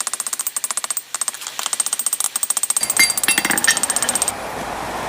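Power hammer pounding a hot railroad spike to draw out the horns, about ten rapid blows a second with a metallic ring. The blows stop near the end, leaving a steady running noise.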